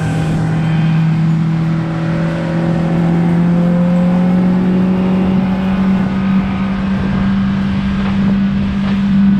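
Motorboat engine running under way, its steady drone rising slowly in pitch as the boat gathers speed, with a few brief swishes near the end.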